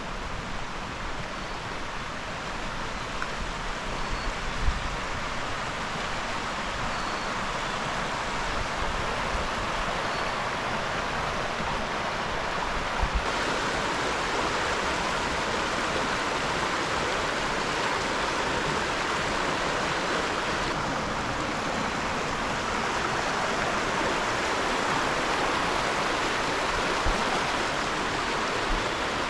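Creek water rushing steadily, a little louder and brighter from about halfway through.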